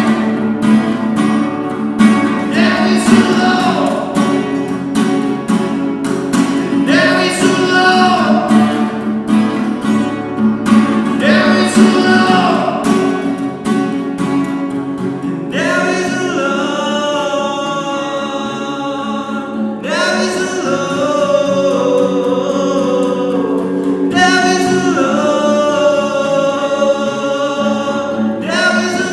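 Acoustic guitar strummed in chords under a singing voice, performing an original song inside a grain bin. About halfway through, the strumming thins and the voice holds long notes.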